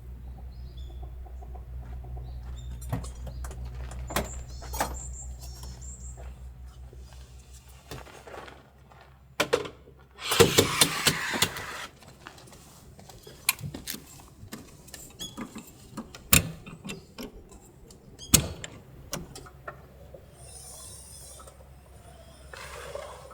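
Scattered light clicks and knocks of objects being handled, over a low steady rumble that fades out about eight seconds in. About ten seconds in, a louder noisy rush lasts under two seconds.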